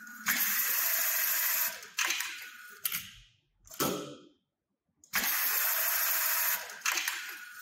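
HighTex ASM911 programmable pattern sewing machine running two automatic sewing cycles. Each cycle is a steady, bright run of about a second and a half, and a few sharp clacks fall between the two runs.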